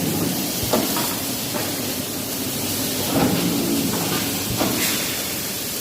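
NC pipe bending machine running on trial: a steady hissing machine noise with a few short knocks.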